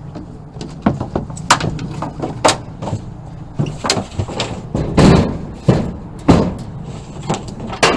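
Repeated knocks and clunks as a wooden board fitted with a solar charge controller and power inverter is worked into a truck bed tool box, about a dozen sharp knocks coming irregularly from about a second in.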